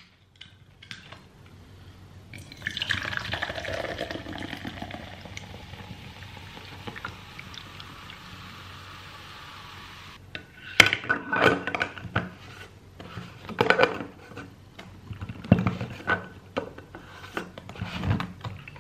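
Carbonated energy drink poured from a can into a plastic tumbler, splashing and fizzing for about eight seconds. After that come a series of sharp plastic clicks and knocks as the tumbler is handled and its lid and straw are fitted.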